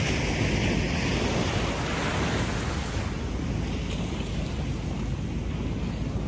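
Gentle ocean waves washing up a sandy beach and drawing back: a slow swell of surf near the start that gradually fades.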